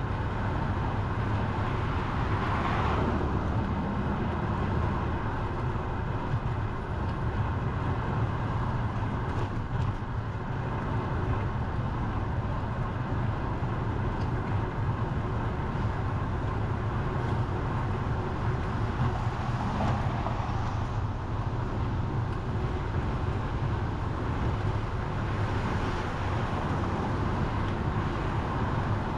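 Steady road-traffic noise with a deep rumble underneath, swelling as vehicles pass about three seconds in and again around twenty seconds.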